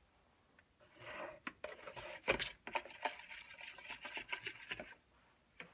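Epoxy being stirred in a mixing cup: a stir stick scraping and rubbing around the sides, with a few sharp knocks. The sound is faint and irregular and stops shortly before the end.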